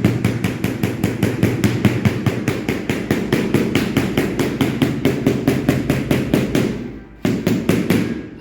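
Rapid, even tapping, about seven strikes a second, over a steady low hum, breaking off briefly and resuming near the end.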